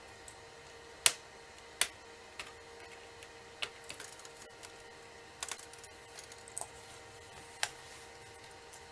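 Scattered sharp clicks and taps from handling an Acer Aspire V5-571 laptop, about eight of them at an uneven pace, over a faint steady hum.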